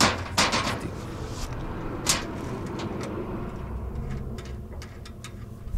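A wrench working a nut on a bolt: a few sharp metallic clicks and knocks, the loudest at the start and about two seconds in, over a steady low background rumble.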